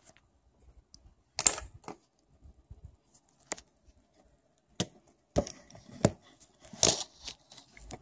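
Scattered sharp clicks and taps of hard plastic and small tools being handled on a desk, about six in all, the loudest about one and a half seconds in and several close together near the end, with quiet between.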